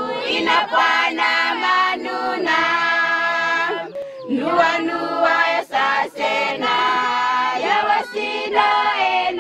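A group of women singing together in chorus without instruments, the voices holding long notes with short breaks between phrases.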